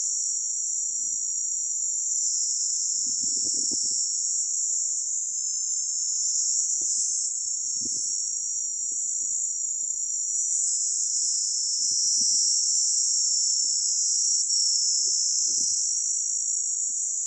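Steady high-pitched shrilling of an insect chorus, unbroken and swelling slightly now and then, with faint low scuffs here and there.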